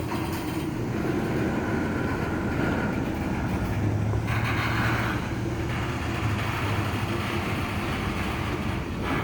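Freight cars of a long CSX mixed freight train rolling past, a steady rumble of steel wheels on the rails, with a low hum joining in for a second or so about four seconds in.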